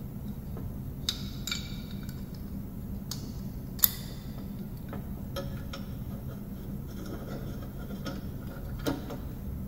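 Scattered metallic clinks and taps as a mower deck belt is worked by hand around the spindle pulleys and their hardware. One sharp click just before four seconds in is the loudest. A steady low hum runs underneath.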